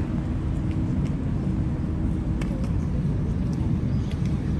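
Low, steady rumble of a yacht's engine running at idle alongside the quay. A steady hum stops about halfway through, and a few faint clicks sound over it.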